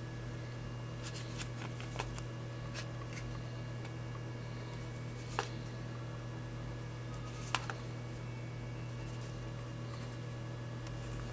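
Small clicks and taps of two smartphones' plastic bodies being handled and turned in the hands, over a steady low electrical hum; the two sharpest clicks come about halfway through and two seconds later.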